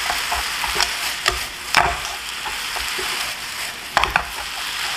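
Yaki udon (udon noodles with squid, shrimp and vegetables) sizzling steadily in a frying pan as it is stir-fried with wooden chopsticks, the sauce and moisture being cooked off. About five sharp clicks of the chopsticks against the pan, two of them close together near the end.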